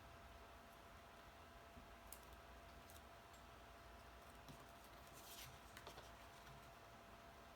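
Near silence: room tone with a faint steady hum and a few soft clicks and rustles of cardstock pieces being handled and pressed together.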